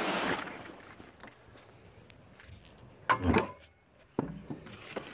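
A bundle of dry palm fronds rustling and scraping over concrete as it is hauled. The rustle is loudest at the start, and a louder scrape comes about three seconds in.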